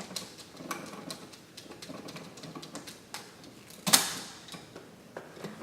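Scattered small clicks and ticks of a screwdriver tightening the ground terminal screw on a dimmer switch, with one sharper, louder click about four seconds in.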